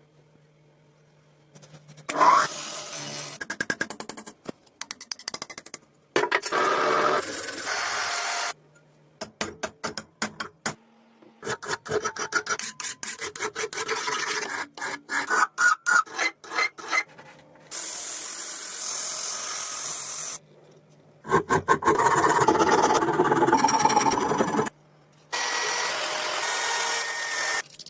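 Hand filing and rubbing on a screwdriver being restored: runs of rapid back-and-forth rasping strokes alternating with steadier scraping, broken into several stretches by sudden cuts to silence.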